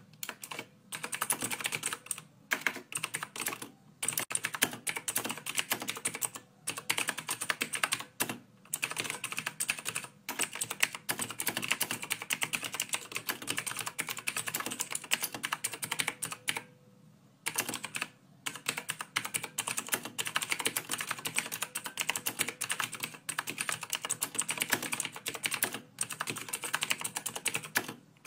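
Rapid, continuous keyboard-typing clicks, broken by short pauses every few seconds and a longer pause about seventeen seconds in.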